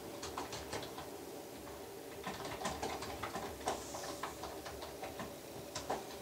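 Light, irregular clicks and rustles, several to a second, with a few slightly louder taps about 3.7 and 6 seconds in, from movement on a baby's play mat and play gym. A faint steady hum lies underneath.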